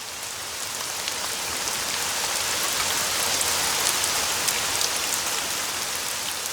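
Steady rain falling, with many separate drops ticking on a hard surface; it swells in at the start and fades out near the end.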